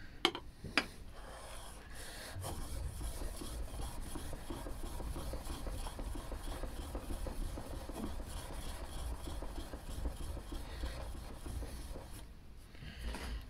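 A steel chisel being honed back and forth on a DMT DuoSharp diamond whetstone, making a steady gritty scraping that starts a couple of seconds in and dies away near the end. A couple of light clicks come first, as the blade is set on the plate.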